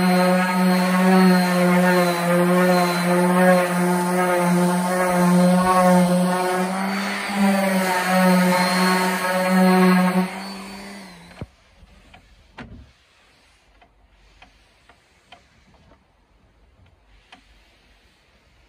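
A power tool's electric motor running at a steady pitch, then cutting off suddenly about eleven seconds in. After that there are only faint soft rubbing sounds and light ticks as a cloth is wiped over the wooden tabletop.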